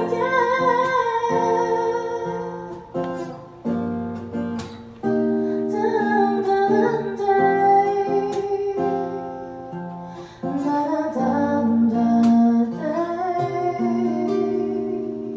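A woman singing into a microphone with an acoustic guitar strummed alongside. Near the end the phrase closes on a long held note while the guitar chord fades away.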